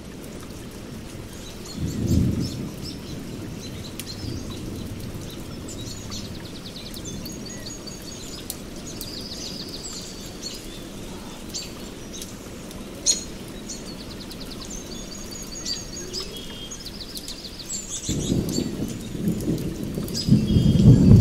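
Steady rain with a low rumble of thunder about two seconds in and a louder, longer one near the end, while small birds chirp and trill throughout.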